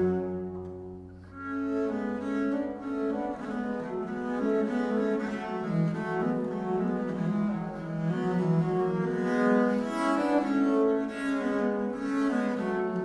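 Background instrumental music: slow, sustained notes moving from one to the next, briefly dipping about a second in before carrying on.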